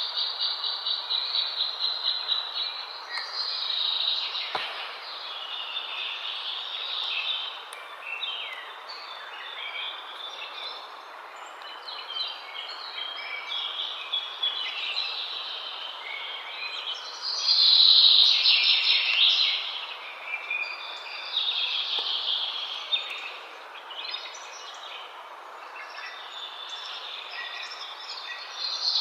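Several birds chirping and singing over a steady outdoor hiss, with a fast trill at the start and the busiest burst of calls about two-thirds of the way through.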